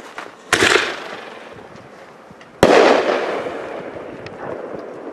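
Consumer aerial ball shell fired from a mortar tube. A sharp launch bang comes about half a second in. About two seconds later the shell bursts overhead with a louder bang that echoes and slowly fades.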